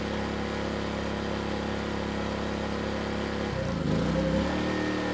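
Erayak 4500PD dual-fuel inverter generator running steadily under a 750-watt load. About three and a half seconds in it stumbles briefly and settles at a new engine pitch as it switches over from propane back to gasoline, a little rough but without stalling.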